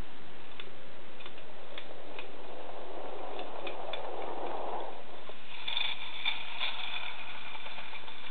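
Clockwork mechanism of a 1930s Tipp & Co tin wind-up car: scattered light ticks and clicks, a soft rasping noise around the middle, then a brief whirring run of the gears about six seconds in.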